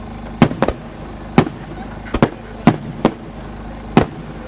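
Aerial firework shells bursting: a string of sharp bangs, about eight of them at irregular intervals, some in quick pairs.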